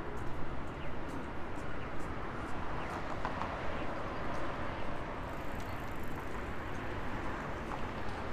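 Steady city street ambience: an even wash of urban background noise, with faint ticking footsteps on pavement.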